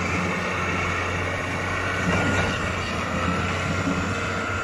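Diesel engine of a Caterpillar 140 VHP Plus motor grader running as the machine drives slowly away: a steady drone.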